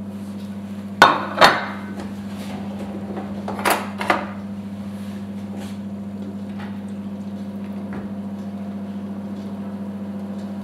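A metal spoon and plate knocking against a stainless steel pot as fish fillet is pushed down into the water: two quick pairs of clinks, about a second in and again about four seconds in, over a steady low hum.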